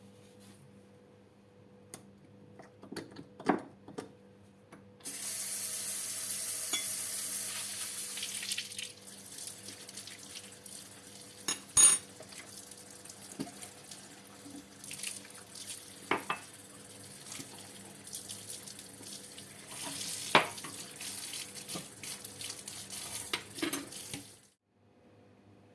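Water running from a kitchen tap into a sink, strongest for the first few seconds and then running lighter, with several sharp clinks and knocks of dishes. The water stops abruptly near the end.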